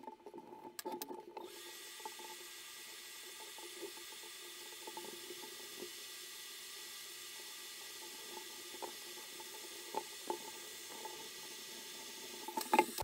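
Hot air rework station blowing a steady hiss with a faint high whine, starting about a second and a half in, as it reflows the solder of two reballed ROM chips onto a graphics card board. A few light clicks of tweezers on the board.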